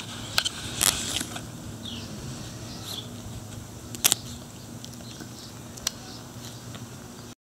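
Scattered sharp clicks and leaf rustles from a small dog nosing and nibbling a leafy stem, over a low steady background, with two faint chirps a second apart.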